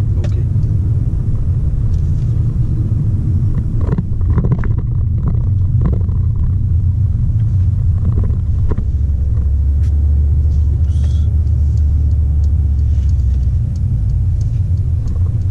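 Steady low rumble inside the cabin of a moving Mercedes-Benz A200 (W177): road and drivetrain noise from the car under way, with its 1.33-litre turbocharged four-cylinder. A deeper, stronger hum holds for a few seconds past the middle.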